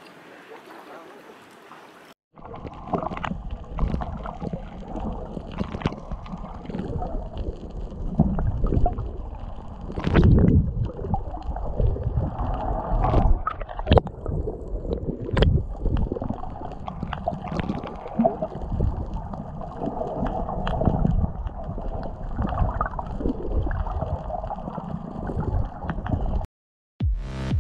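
Underwater audio picked up by an action camera in its housing: a muffled, continuous water sloshing and gurgling, with irregular knocks and bubble pops, starting about two seconds in and cutting off suddenly near the end.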